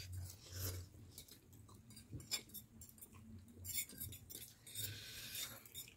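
A few faint clinks of forks against ceramic plates as noodles are twirled and eaten, with soft airy mouth sounds between them.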